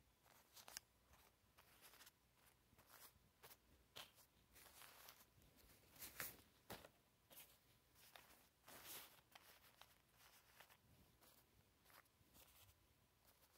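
Faint rustling and light taps from miniature toy pizza boxes being handled and set down on a cloth sheet, in short irregular bursts, the loudest about six seconds in.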